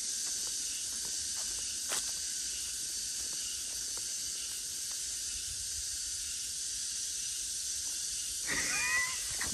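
Steady, shrill chorus of summer cicadas, an unbroken hiss. A short chirping call is heard near the end.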